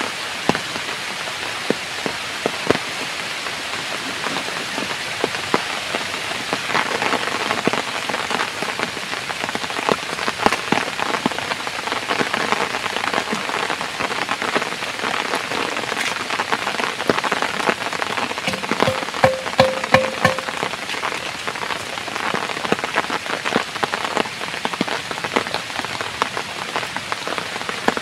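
Heavy rain falling steadily, with many drops ticking sharply on nearby surfaces. A brief steady tone sounds about two-thirds of the way in.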